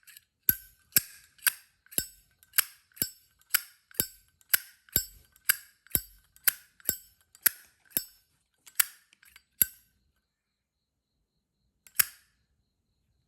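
Brass Zippo lighter lid being flipped open and snapped shut over and over, sharp metallic clicks with a bright ringing tone, about two a second, stopping about ten seconds in, followed by one last click a couple of seconds later.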